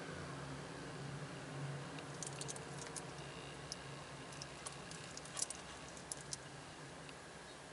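Faint scattered clicks and clinks of a Doxa SUB 1000T dive watch's solid stainless steel link bracelet being handled, with a cluster about two to three seconds in and another about five and a half to six and a half seconds in, over a steady low hum.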